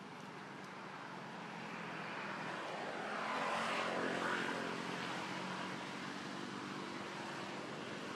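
Engine noise of something passing by in the background, building to a peak about four seconds in and then fading.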